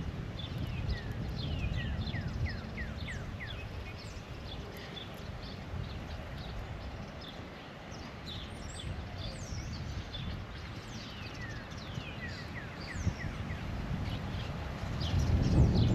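Small birds chirping in quick runs of short, falling notes, over a low rumbling noise that grows louder near the end.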